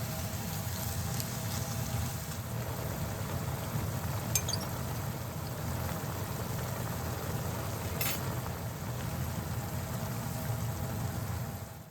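Pan of broth with pork, napa cabbage and satsuma-age simmering and bubbling steadily on the stove. Two brief light clinks come partway through.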